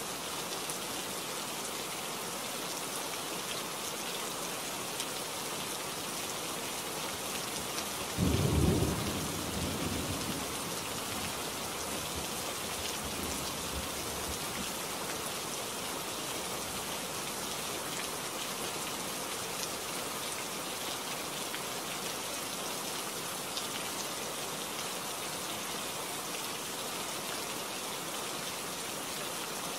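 Steady rain falling, with one loud clap of thunder about eight seconds in that rumbles away over the next few seconds.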